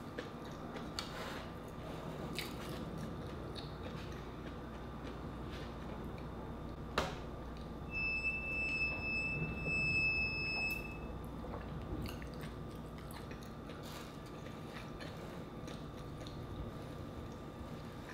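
A steady high-pitched tone lasting about three seconds, about eight seconds in, taken to come from the insulated water bottle being drunk from through its straw lid. A single sharp click comes just before it, and soft chewing and mouth sounds fill the rest.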